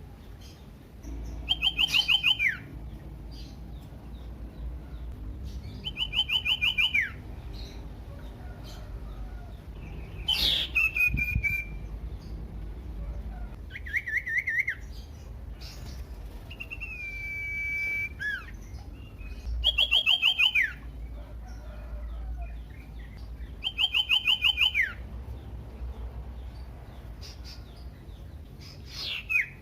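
Common iora singing: a fast rattling trill about a second long that drops in pitch at the end, given four times several seconds apart, with a long held whistle and other shorter trills and whistles between them.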